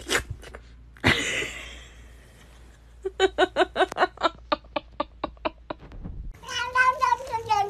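Grey cat vocalising: a short hiss-like burst about a second in, then a quick run of about a dozen short chirping calls, and near the end a long, drawn-out yowl that falls slightly in pitch.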